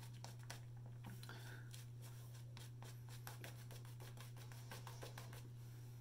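A shaving brush and fingertips working lather over a stubbled face: faint, quick, scratchy strokes, with a steady low hum behind.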